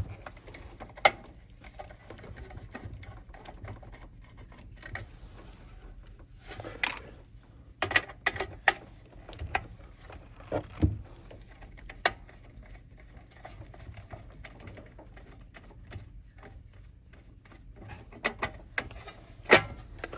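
Scattered light clicks and knocks of a nut driver, hex nuts and a metal bottom plate being handled while a 1956 Zenith tube radio chassis is unbolted. The clicks bunch together in the middle, with a duller thud among them, and a few more come near the end.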